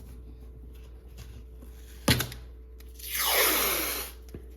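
A sharp knock about two seconds in, then about a second of wide adhesive tape ripping as it is pulled free, used to lift dust off a flatbed scanner's glass.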